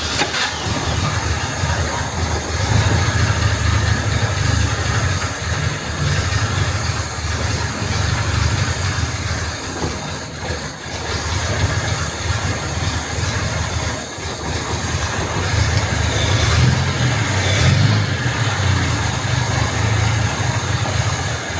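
Jaguar MKII's XK straight-six engine running steadily just after starting, on the choke and running rich.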